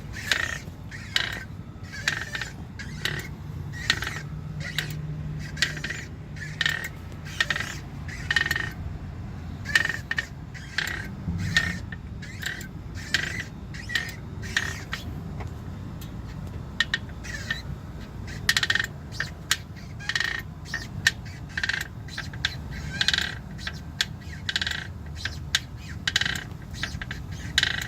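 Clutch noise from a 2016 Jeep Wrangler Unlimited: short, sharp squeaks or chirps repeat about once a second over the low, steady running of the engine. The owner says the noise appears only once the Jeep is warmed up, and calls it a known problem.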